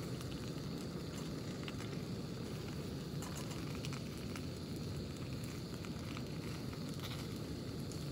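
French toast frying in a pan over a camping gas burner: the burner's flame runs steadily underneath, with scattered faint crackles and sizzles from the toast in the pan.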